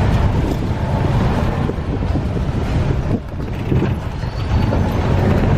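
Road traffic noise: a steady, dense rumble of vehicle engines and tyres, dipping briefly about three seconds in.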